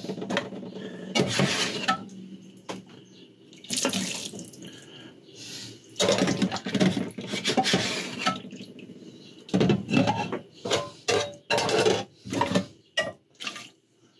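Washing up by hand in a stainless steel sink: water splashing and running as a plate, a metal pan lid and a non-stick saucepan are rinsed and scrubbed. Short clinks and knocks of the dishes against the sink come more often in the last few seconds.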